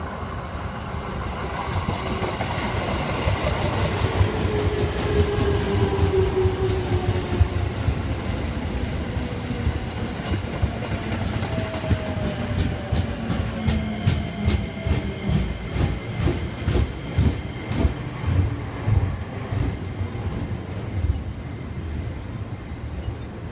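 JR East 205 series electric train arriving and braking. A whine falls in pitch over the first several seconds, a high brake squeal sets in about a third of the way through, and in the second half the wheels click steadily over the rail joints under a low rumble as the train slows.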